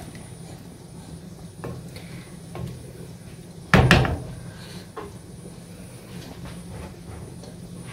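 Wooden spoon stirring a pot of curry, with a few light taps and one louder knock against the pot about four seconds in as the spoon is lifted out, over a steady low hum.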